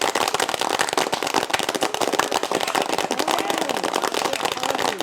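Homemade crowd applause: about twenty layered recordings of one person's hand clapping playing together as a dense, steady wall of claps, with faint voices in the mix.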